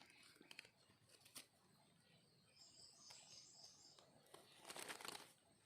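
Near silence with faint distant bird calls: a quick run of short, high chirps about halfway through, with a few light clicks and rustles.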